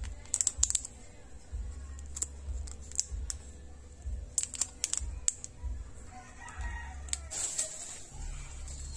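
Clear plastic wrapper of a dishwasher detergent tablet crinkling as it is handled by hand: scattered sharp crackles in small clusters.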